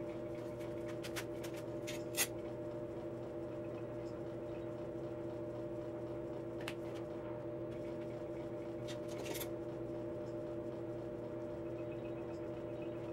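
A steady electrical hum of several fixed tones, with a few scattered sharp clicks and taps, the loudest about two seconds in, from hand work on the metal rods and frame fitted to a concrete slab.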